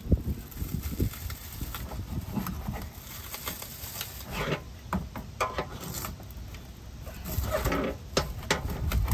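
Irregular scraping, rubbing and light knocking from hands-on work under a camper, with a denser stretch of rubbing near the end.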